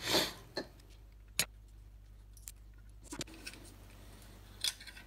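A thin metal tool prying an LED circuit board out of a plastic LED bulb housing: a brief rustle of handling, then a few separate sharp clicks and ticks as the board is levered loose, the sharpest about a second and a half in.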